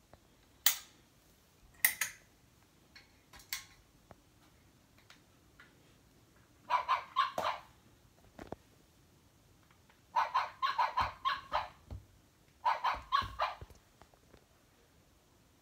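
Battery-powered schnoodle puppy plush toy playing recorded dog yaps through its small speaker: two short sharp sounds near the start, then three bursts of quick, high barking in the second half.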